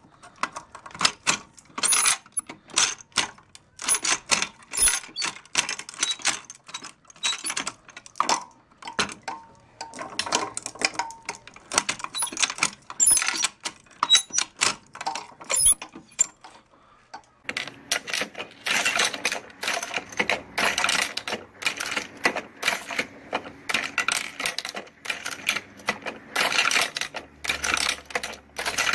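Hand-operated ammunition belt loader at work: metallic clicks and clacks of cartridges rattling in the feed tray and of the handle cycling rounds into the belt links. The clacking gets busier and denser about two-thirds of the way through.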